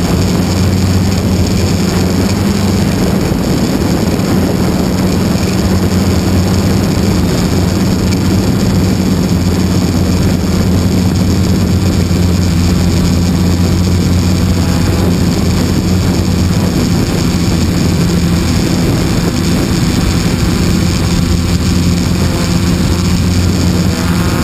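Propellers and motor running steadily close to the microphone: a constant loud drone with a low, even hum.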